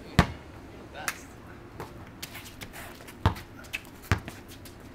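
Basketball bouncing on a concrete driveway as a player dribbles: a few irregular thuds, the loudest about a quarter second in and again past the three-second mark, with lighter knocks between.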